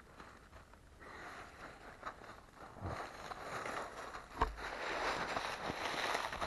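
Footsteps rustling through brush and leaf litter. The rustle grows louder from about three seconds in, with a few sharp clicks and a low thump about four and a half seconds in.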